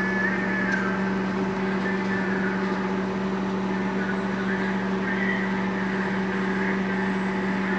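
Microwave oven running while heating a Twizzler: a steady low hum over an even rush of fan noise.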